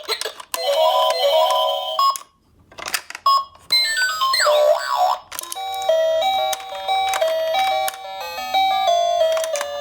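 Bright electronic music: a chime-like melody of short stepped notes, broken about two seconds in, with a gliding, swooping sound effect around the middle before the melody resumes.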